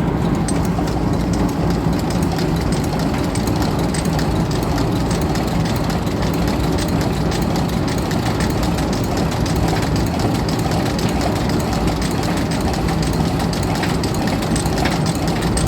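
Antique Champion leather sewing machine running steadily on its gas-engine-driven line shaft: a fast, even mechanical clatter over a low engine hum.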